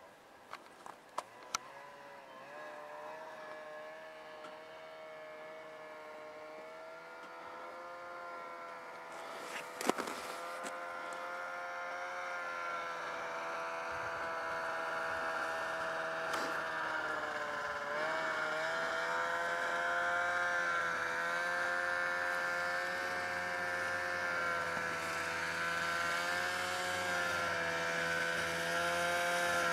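Snowmobile engine approaching from far off, its steady drone growing gradually louder, the pitch dipping and rising slightly about eighteen seconds in. A few clicks near the start and a single sharp knock about ten seconds in.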